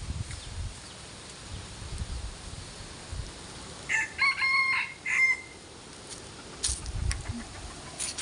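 A rooster crows once, about four seconds in, over the low rumble of strong wind gusting across the microphone.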